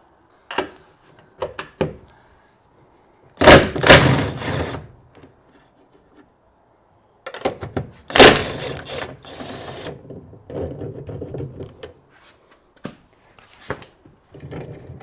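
Metal knocks and clunks as a coilover strut is worked free of the front hub: scattered clicks, then two loud clattering thunks, about three and a half and eight seconds in, each rattling for about a second.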